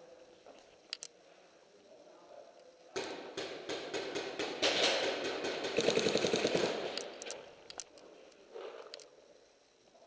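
Paintball markers firing: two single shots about a second in, then about four seconds of rapid bursts, fastest and loudest in the middle, echoing in a large indoor hall, and a few last shots after them.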